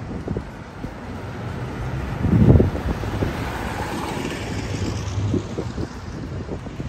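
Wind buffeting the microphone over steady street traffic, with a strong gust about two and a half seconds in.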